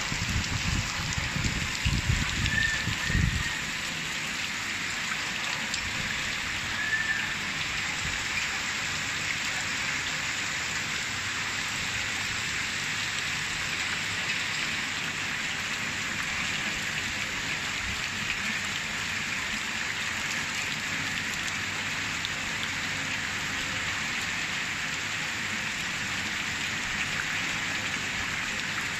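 Heavy rain pouring steadily onto a flooded street, a dense even hiss of drops hitting standing water and hard surfaces. A low rumble sits under it for the first few seconds.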